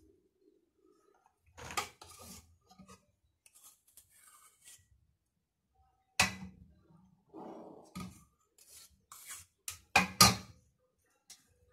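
Metal spoon clinking and scraping against a stainless steel saucepan of melted chocolate. There are a few sharp clinks spread apart, the loudest cluster near the end, and a short scrape between them.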